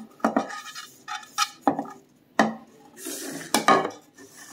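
Hands rubbing shortening around the inside of metal Nordic Ware round cake pans, with scraping against the pan and several sharp knocks and clinks as the pans are handled on the counter.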